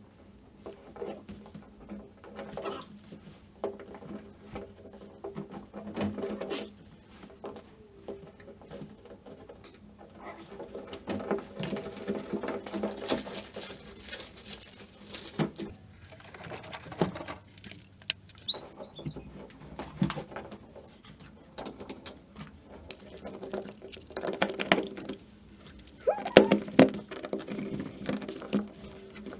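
Irregular rustling, scraping and small knocks of someone working by hand, moving about and handling tools and materials, with a brief high squeak about two-thirds of the way through.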